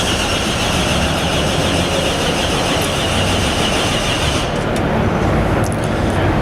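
A car engine being cranked on its starter and trying to catch, with a steady whine that stops about four and a half seconds in while the engine noise carries on.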